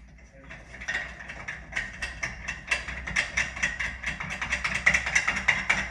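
Ratcheting screwdriver clicking quickly as it backs out a screw on a shower valve trim plate, starting about a second in and growing louder.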